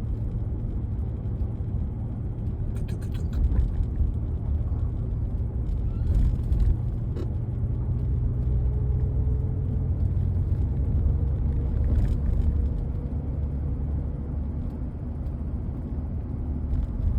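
Cabin sound of a four-wheel-drive vehicle on the road: a steady engine and tyre rumble, with a faint whine that rises slowly in pitch through the middle and a few light knocks.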